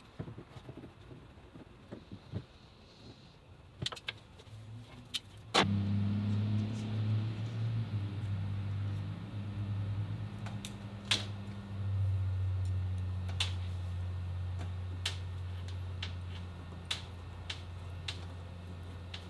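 Small clicks and clinks of barb fittings and pliers being handled as the fittings are screwed into a plastic water tank. From about six seconds in, a steady low hum runs underneath.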